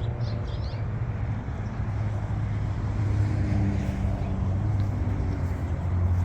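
Steady low rumble of a car on the road, with a few faint high chirps about half a second in.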